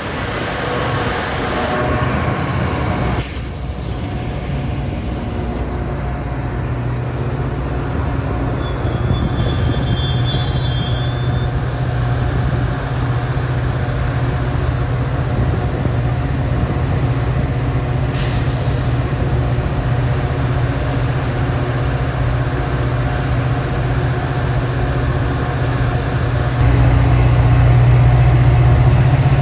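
Diesel passenger train locomotive running with a steady low hum, with two short hisses of air, about three seconds in and about eighteen seconds in, and a brief high squeal around ten seconds. The engine gets louder near the end.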